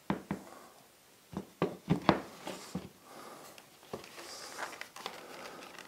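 Wooden leg frame being set down and positioned on a painted wooden table top: a handful of light knocks in the first two seconds, then softer scraping and handling noise.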